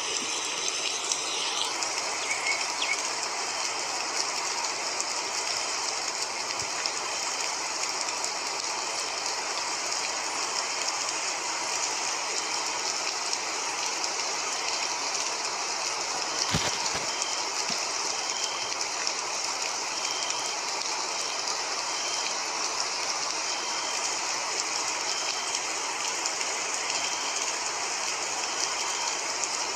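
A steady, even hissing noise bed like rain or a train ambience, with faint short high beeps repeating about once a second through the middle and a single sharp click about halfway through.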